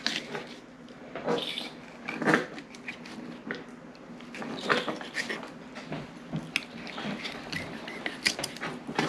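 Fillet knife cutting into a whitefish on a plastic cutting board: irregular short crunches and scrapes as the blade works through flesh and bone.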